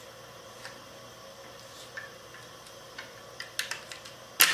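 Small clicks and taps of hands working the charging-handle pin out of a CZ Scorpion Evo 3 S1, with a quick cluster of clicks and then a sharp, loudest click near the end as the pin comes out.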